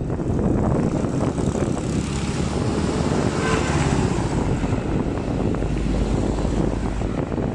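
Motorcycle running on the road with wind rushing over the microphone, with a louder swell a little past the middle.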